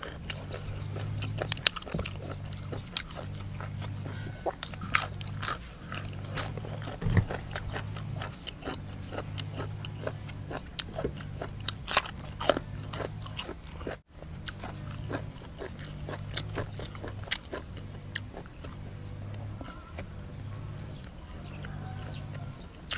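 Close-up chewing of mouthfuls of blanched beef shank, with many sharp crunching clicks. Under it runs a low hum that comes and goes in roughly one-second stretches.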